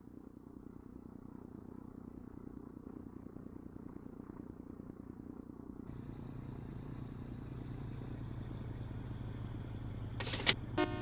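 A truck engine running steadily, growing a little louder, with a deeper, fuller note from about halfway through. Two sharp loud cracks come near the end.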